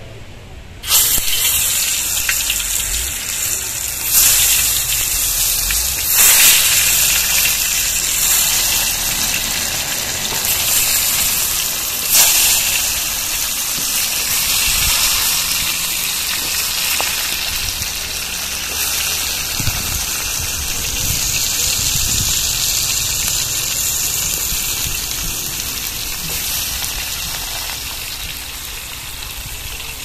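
Tomato slices going into hot oil in a large wok-style pan, sizzling loudly. The sizzle starts suddenly about a second in, flares up a few more times as more slices go in, and then slowly settles.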